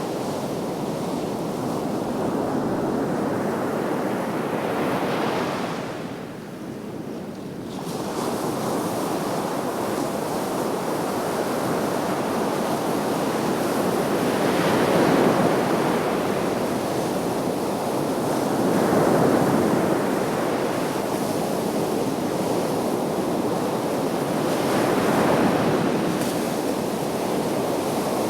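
Sea waves breaking and washing onto the shore, a steady rush of surf that swells and eases every few seconds, with a brief lull about a quarter of the way in.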